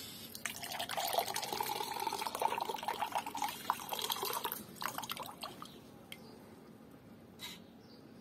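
Water pouring from a tipped aluminium can into a drinking glass, splashing and gurgling as the glass fills, with a ringing tone from the glass. The stream starts about half a second in and thins to a few drips after about five seconds.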